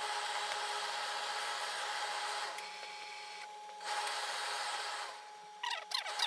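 Hose-fed tailor's steam iron releasing steam over suit trousers: two hissing bursts, the first about two and a half seconds long, the second about a second long, starting about four seconds in. Near the end come short scraping strokes of the fabric being rubbed and smoothed.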